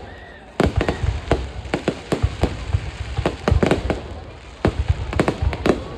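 Fireworks display going off: a rapid, irregular run of sharp bangs and crackles over a low booming rumble, with two short lulls, one at the start and one just after the middle.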